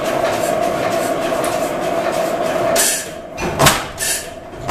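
Pattin Brothers four-cycle oilfield engine running, with a steady rushing noise for the first few seconds. About three seconds in the rush drops away and the engine's slow, heavy exhaust beats come through, about one a second, each followed by a softer knock.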